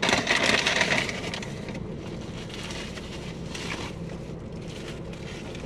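Paper food wrapper rustling and crinkling as a burger is handled, loudest in the first second or two, over a steady low hum.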